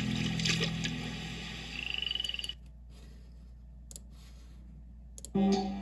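A short, rapidly pulsed frog croak sound effect, rising slightly in pitch, about two seconds in, as music fades out under it. A quiet stretch of faint hiss with a few sharp clicks follows, and new music starts near the end.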